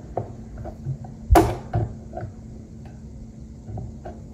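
A hand handling a 12-inch plastic desk fan's head and grille: a series of light clicks and knocks, the loudest about a second and a half in, over a steady low hum.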